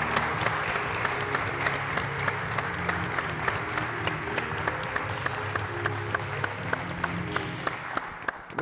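Audience applauding over background music with a steady beat. Both fade down near the end.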